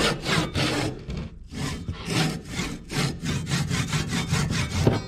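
Pull saw cutting through the end of an axe handle and its wooden wedge, in quick back-and-forth strokes of about three or four a second, with a brief pause about a second and a half in. It is trimming the excess wood left standing above the axe head after wedging.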